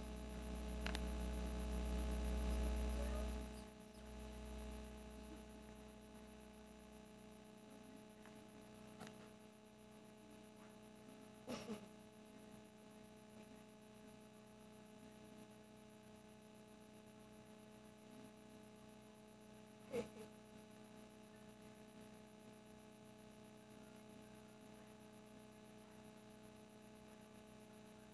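Steady low electrical hum with faint constant tones. Rumbling handling noise on the microphone fills the first four seconds, and a couple of brief clicks come about twelve and twenty seconds in.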